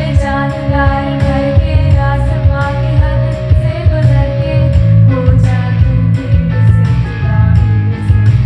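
A girl singing a song over an accompaniment with a steady beat and heavy bass.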